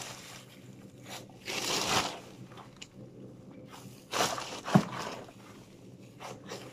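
Plastic garbage bag and its rubbish rustling and crinkling as hands rummage through it. There are two louder bursts, one a little under two seconds in and one from about four to five seconds in, the second with a sharp snap.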